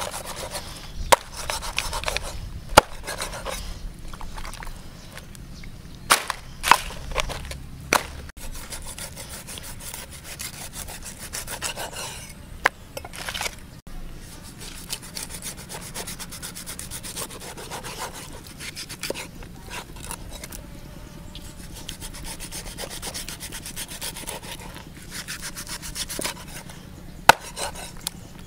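A steel cleaver slicing and scraping through raw stingray flesh on a wooden chopping block, a steady rasping scrape. A few sharp knocks come as the blade strikes the wood, most of them in the first eight seconds and one near the end.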